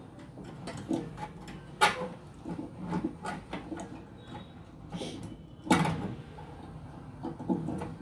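Handling clicks and knocks of wire connectors being pushed back onto terminals inside a microwave oven, with two sharper clicks, about two seconds in and near six seconds.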